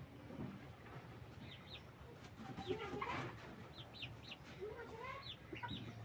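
Broiler chickens clucking softly, with short high chirping calls in little groups of two or three scattered through.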